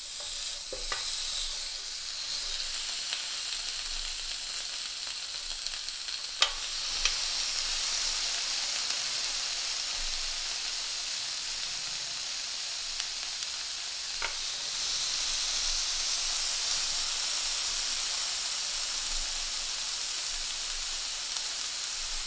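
Strips of L.A.-cut beef short ribs sizzling as they are laid one by one on a hot electric grill pan. The sizzle grows louder in steps as more strips go on, with a few sharp clicks of the tongs against the pan.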